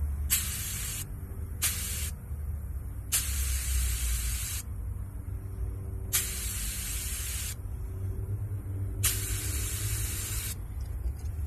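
Air hissing out of a car tire through the bleed valve of a Rhino USA digital tire inflator gauge, in five short releases of about half a second to a second and a half each. The tire is being let down from 35 toward its 32 psi spec.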